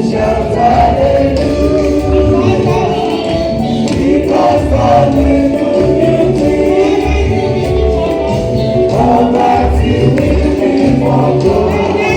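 Gospel music: a choir singing over a steady bass beat with tambourine.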